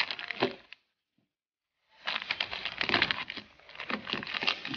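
Crinkling and crackling of a plastic candy bag being handled, in quick irregular clicks, dropping out to dead silence for about a second shortly after the start.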